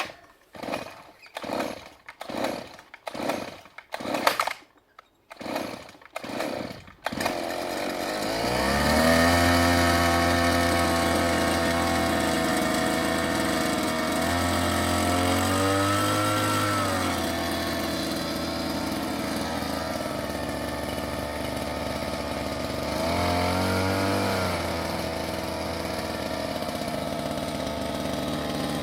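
Small air-cooled 2 hp two-stroke outboard engine, whipper-snipper type, worked on its pull-start in a quick series of strokes, then catching about seven seconds in. It revs up, drops back to a fast, buzzy idle, and is revved briefly twice more, starting first time straight out of the box.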